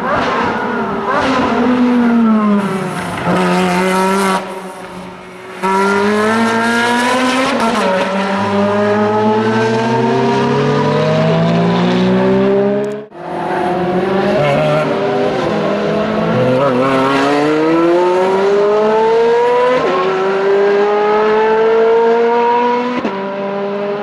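Ferrari 430 Scuderia's straight-piped 4.3-litre V8 on a race track: the pitch falls through downshifts, then climbs hard under full throttle with quick upshifts, each dropping the pitch before it rises again. The sound breaks off abruptly a few times between passes.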